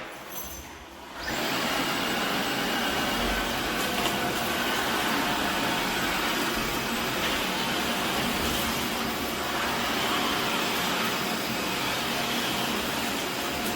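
Tineco Floor ONE S7 PRO cordless wet-dry floor cleaner switching on about a second in, its suction motor and brush roller then running steadily.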